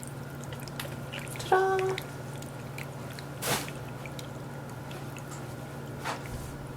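PetAcc electric cat water fountain running: water trickling from its flower top over a steady low pump hum. A brief louder splash-like noise comes about three and a half seconds in.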